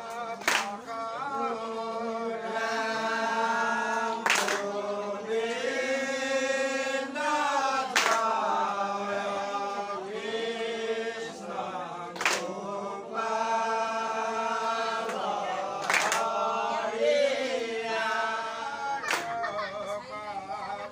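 A group of men singing a Dihanam devotional chant together in long, held lines. A pair of large brass hand cymbals is struck about every four seconds, six clashes in all, each ringing on briefly.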